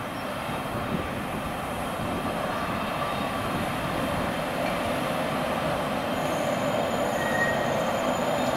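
ČD class 151 electric locomotive and its passenger coaches running into the platform, a steady rumble of wheels on rail growing louder as the train approaches. A thin high squeal of wheels or brakes joins in about six seconds in.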